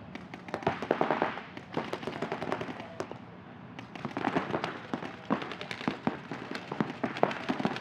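Paintball markers firing rapid strings of shots in bursts. The shots come in three busy stretches, with a thinner spell of scattered shots about two to four seconds in.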